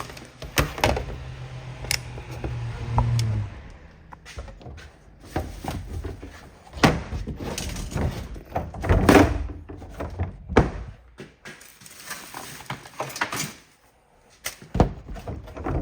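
Irregular knocks, thuds and clatter of things being handled and set down, with a low steady hum through the first three seconds or so that then stops.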